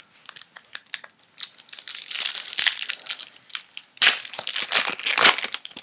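Baseball card pack wrapper crinkling and crumpling as the pack is opened, in crackly bursts that are loudest about two seconds in and again from about four seconds to near the end.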